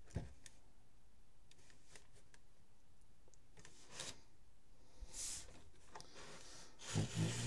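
A LEGO brick townhouse model being handled and turned on a wooden shelf: faint plastic clicks and rubbing, with a louder low bump about seven seconds in.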